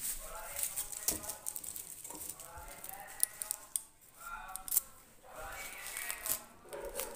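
Indistinct voices talking, broken by a few sharp clicks and clinks of a steel lunch box being handled.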